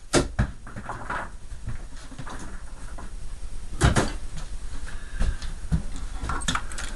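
Hard knocks and clatter of mini-fridge parts (plastic pieces and small fan motors) being handled and set down during disassembly, the loudest knock about four seconds in.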